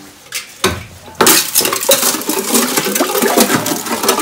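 A tin can knocking into a plastic water barrel and scooping water: a couple of knocks, then from about a second in a dense run of clinks and splashing as it breaks through thin ice on the surface and the shards knock together.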